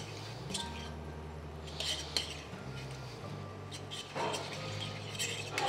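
A few light clinks and knocks against a stainless steel pan as hydrated seaweed is scattered into it by hand, the louder ones about four seconds in and near the end, over a low steady hum.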